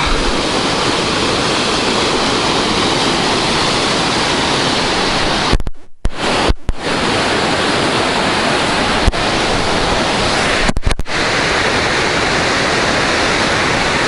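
Huka Falls rapids: white water rushing through the narrow rock gorge, loud and steady. The sound drops out briefly twice about six seconds in, and a few sharp clicks follow a little later.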